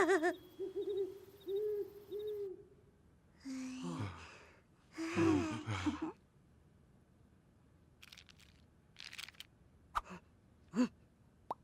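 Wordless cartoon-character vocalizing: a held, wavering hum-like tone, then two longer hooting vocal sounds, then a few short, sharp sounds falling in pitch near the end.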